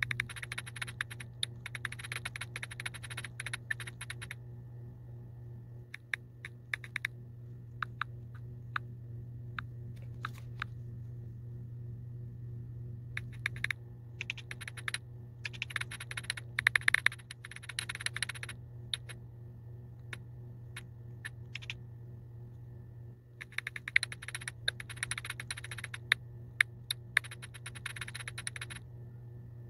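Keyboard typing clicks in three runs of a few seconds each, at the start, in the middle and near the end, with scattered single taps between them, over a steady low hum.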